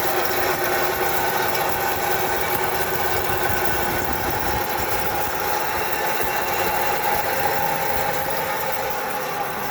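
Worn wheel bearing droning steadily, a continuous mechanical hum with a few held tones. It is the sign of a bearing that has lost its grease and runs dry, metal on metal.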